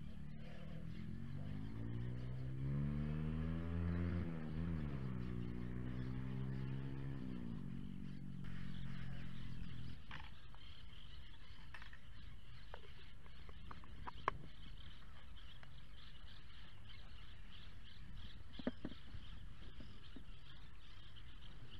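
A motor engine running with a low hum that climbs in pitch, dips and climbs again, then holds steady before cutting off about ten seconds in. After it stops, a few light clicks and knocks follow.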